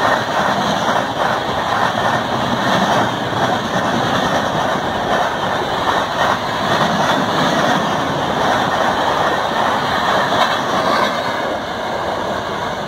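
Red Indian Railways passenger coaches passing at speed: a steady, loud noise of wheels running on rail. It fades over the last second or so as the last coach passes and draws away.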